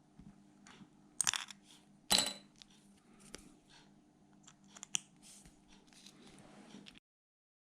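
Small metallic clicks and scrapes of a silver-oxide button-cell watch battery being prised out of a quartz watch movement with a small tool, with two louder clinks about one and two seconds in and a sharp tick near five seconds.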